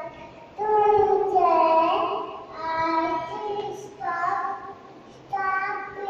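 A young child singing solo, with drawn-out held notes in short phrases and brief pauses between them.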